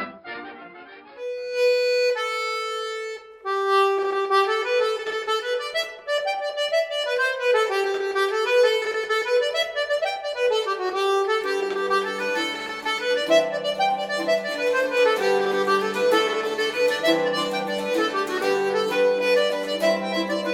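Instrumental music led by an accordion. A new piece begins about a second in with a few held notes, then a melody, and a lower bass accompaniment joins about halfway through.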